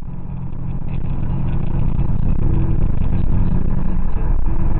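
A car's engine and tyre noise heard from inside the cabin while driving, growing steadily louder.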